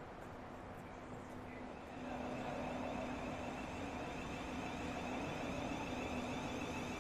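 Electric train running, with a steady electric whine over rumbling noise that gets louder about two seconds in.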